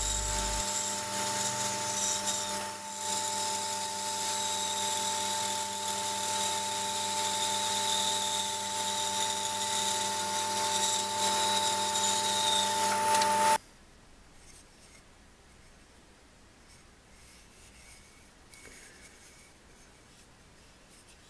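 Startrite 401E bandsaw running and cutting through a wooden offcut: a steady tone with sawing noise over it. It stops suddenly about thirteen seconds in, leaving only faint background noise.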